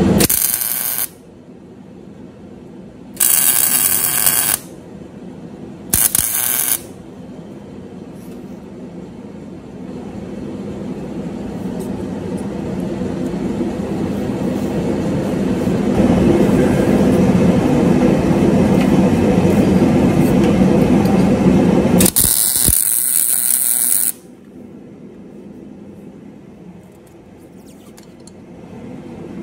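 MIG welder laying short tack welds on a steel shock mount bracket, four bursts of crackling arc noise: three brief ones in the first seven seconds and a longer one of about two seconds near the end. A steady low machine drone fills the gaps and swells in the middle.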